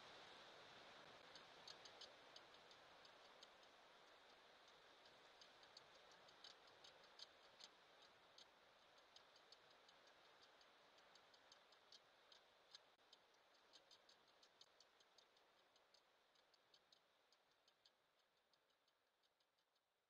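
Near silence: a faint hiss fading away, with faint irregular high-pitched ticks a few times a second.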